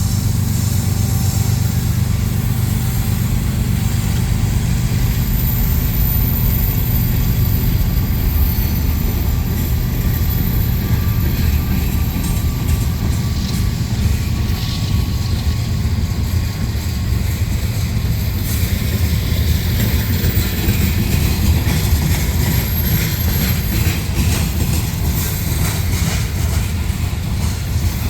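Train running by with a steady low rumble. Faint wheel clicks join in about two-thirds of the way through.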